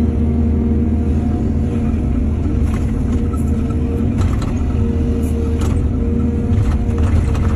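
Excavator's diesel engine running steadily under load, with a scattered string of short knocks and clatters through the second half.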